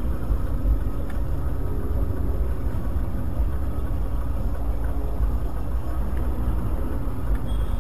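Steady low rumble of a Mercedes-Benz car driving slowly in city traffic: engine and road noise heard inside the cabin through a dashcam microphone.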